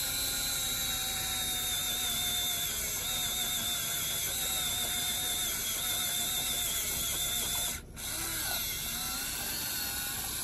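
A small RC tractor's electric drive motor and gears whine steadily as the tractor works through snow, the pitch wavering with the load. The sound dips briefly for a moment about eight seconds in, then picks up again.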